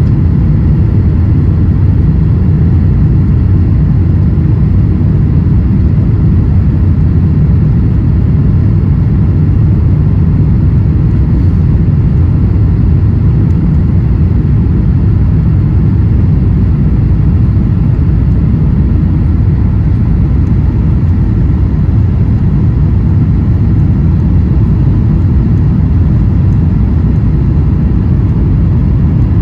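Steady cabin rumble of a Boeing 737-900ER on final approach with its flaps extended, heard inside the cabin by a window seat: the CFM56-7B turbofan engines and the airflow over the fuselage and wing, with faint steady whining tones above the low roar.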